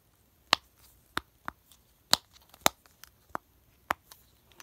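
Silicone bubbles of a simple dimple fidget toy pressed in and out by thumb, making about eight sharp clicking pops, roughly one every half second.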